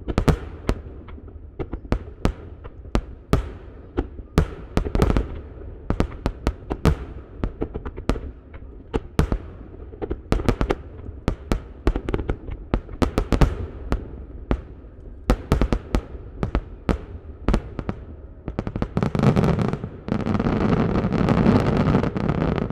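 A barrage of ten-inch (shakudama) aerial firework shells bursting in rapid, irregular succession, several bangs a second, heard from about a kilometre away. For the last few seconds the separate bangs merge into a dense, steady rush of noise.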